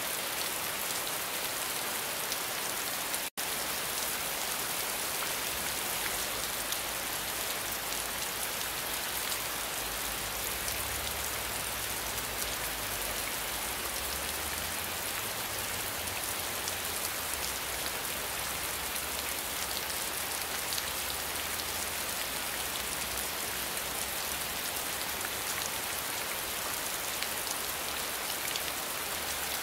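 Steady rainfall, a dense even patter of many raindrops. The sound cuts out for an instant about three seconds in.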